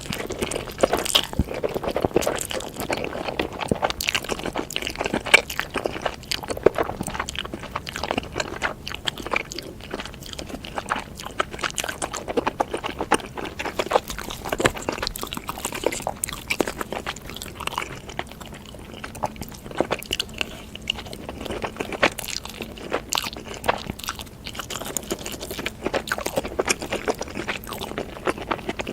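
Close-miked chewing of noodles, with many quick, irregular wet mouth clicks and smacks.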